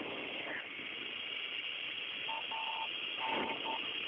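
Steady hiss of a narrow-band space-to-ground radio channel, with no voice on it. About halfway through, a tone starts beeping on and off in uneven pulses.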